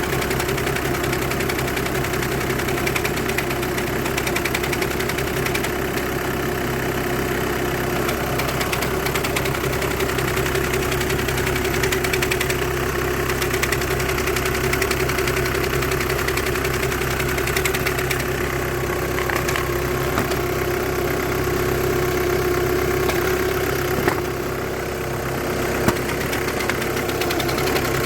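Volkswagen engine with a DSG gearbox idling steadily, a steady whine running through it. It is the strange noise being diagnosed, which the title ties to clutch plate vibration and the clutch bearing. Near the end there are two clicks, with a brief drop in level between them.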